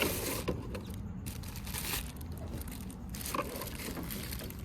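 Crinkling and rustling of cabin air filters being handled, the old and new filters held up against each other to compare their size, in several short bouts.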